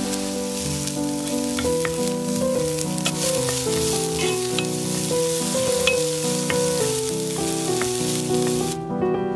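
Food sizzling as it fries in oil in a pan, with scattered clicks of a utensil against the pan, over a background melody of sustained piano-like notes. The sizzling cuts off suddenly near the end while the music continues.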